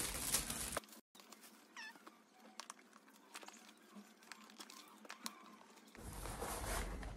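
Foil gift-wrap crinkling as it is pulled off a parcel, then faint handling of a cardboard box with small scattered clicks and taps. A faint short squeak-like cry comes about two seconds in, and paper rustling picks up again near the end.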